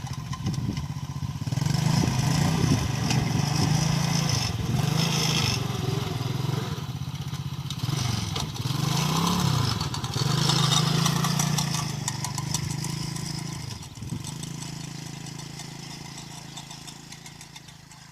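ATV (quad bike) engine running, its pitch rising and falling as the throttle is opened and eased several times. It grows fainter over the last several seconds.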